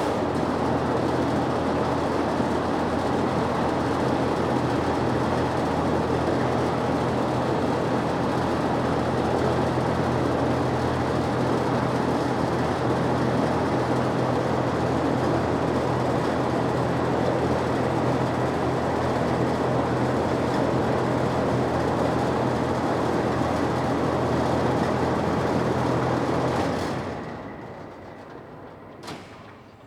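A 36-inch, 750-watt four-pole box exhaust fan running: a steady rush of air over a low hum. About 27 seconds in the sound falls away over about two seconds, and a single click follows near the end.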